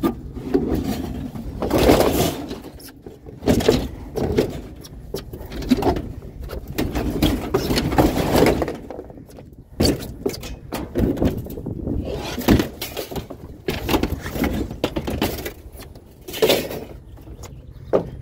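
Irregular scraping, knocking and clattering bangs of bulky scrap being shoved and wedged into a nearly full truck load, with occasional squeals of things rubbing together.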